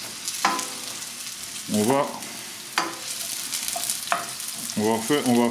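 Sliced onions sizzling in olive oil in a stainless steel frying pan over high heat, stirred with a wooden spoon, with a few sharp clicks standing out.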